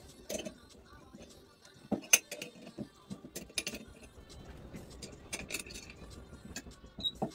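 Metal hand tool clinking and clicking against a stopped wood lathe's chuck and a walnut bowl blank as it is handled. There are scattered sharp knocks, the loudest about two seconds in.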